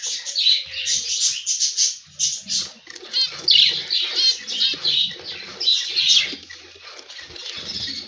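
Budgerigars chattering: a busy stream of quick, high chirps and warbles, with louder runs of calls about three and a half and six seconds in.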